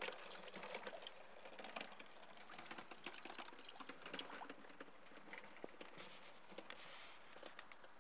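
Faint, irregular patter of small water drops and trickling, with scattered tiny clicks.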